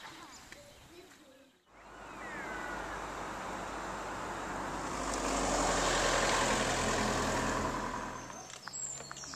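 A car drives past, its engine and tyre noise swelling for several seconds to a peak and then fading away.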